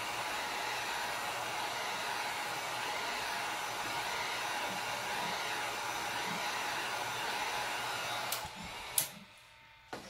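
Heat gun blowing steadily over fresh epoxy to pop its bubbles. The blowing cuts out about eight seconds in, with two sharp clicks.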